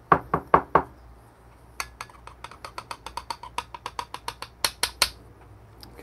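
Ground coffee being knocked out of a metal dosing cup into an espresso portafilter's dosing funnel. Four hard knocks come first, then a quick run of about two dozen lighter metallic taps, roughly seven a second, with a faint ring.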